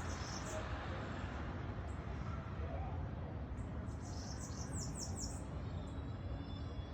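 Small birds chirping: quick runs of high, downward-sliding notes at the start and again about four seconds in, then a wavering call near the end, over a steady background hum.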